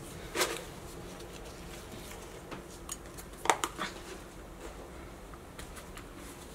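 A few light clicks and taps from handling at a small saucepan as bay leaves are dropped into a seasoning mix, over a low steady hiss. One tap comes about half a second in and two close together about three and a half seconds in.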